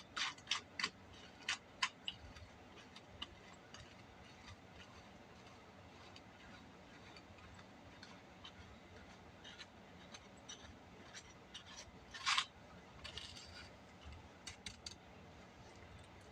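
Faint clicks and light knocks of plastic parts being handled as a pole saw's chain cover and locking cap are fitted, a few quick ones at the start and a cluster near the end, with one short scraping sound about twelve seconds in.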